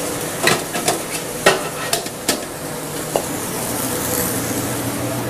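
Pans and utensils clink and knock sharply several times in the first two and a half seconds, with one fainter knock a little after three seconds, over a steady hiss.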